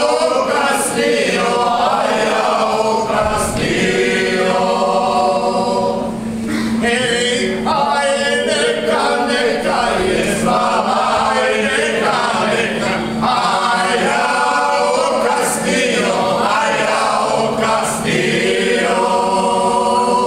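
Mixed group of men and women singing a traditional Banija folk song unaccompanied while dancing a kolo, in short sung phrases with brief breaks between them.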